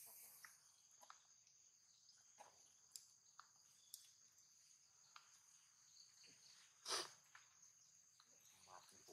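Faint, steady, high-pitched insect chirring, with scattered soft clicks and one louder sharp click about seven seconds in.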